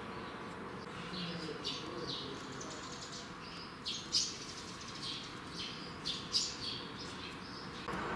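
Small birds chirping: a string of short, high chirps, sharpest about four and six seconds in, over a steady low background hum. A louder steady rushing noise comes in just before the end.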